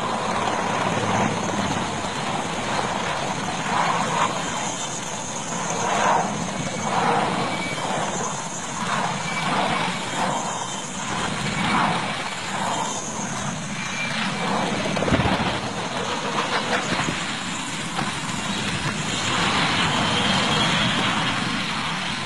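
Military transport helicopter running, its rotor and turbine engines giving a steady rush with an uneven pulsing beat.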